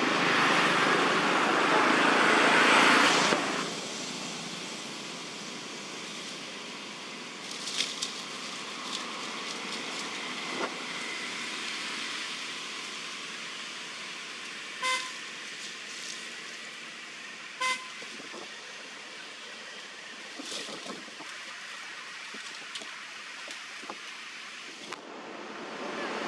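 A vehicle horn toots twice, two short beeps about two and a half seconds apart, over steady outdoor background noise. A louder rushing noise fills the first three seconds or so and cuts off abruptly.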